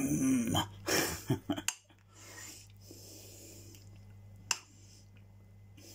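A spoon stirring thick vegetable soup in a ceramic slow-cooker crock, clinking and scraping against the pot with a few sharp clicks in the first second and a half and one more about four and a half seconds in. A steady low hum runs underneath.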